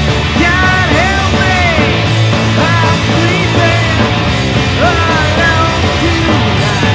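Loud punk rock music: a full band with a yelled, sung vocal line over it.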